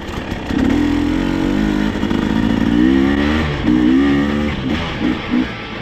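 Off-road vehicle's engine revving under way, its pitch climbing and dropping back several times as the throttle is worked on the trail.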